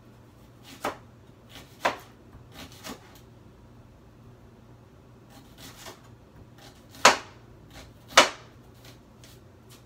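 Knife cutting fresh seasoning on a cutting board: a few short, irregular knocks of the blade on the board, the two loudest about seven and eight seconds in.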